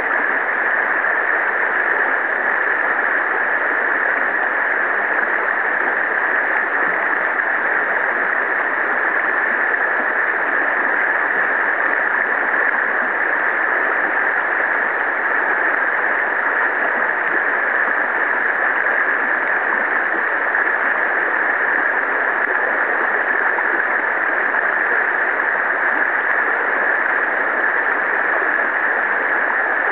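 Shallow river water running steadily through a riffle, an even hiss with no breaks.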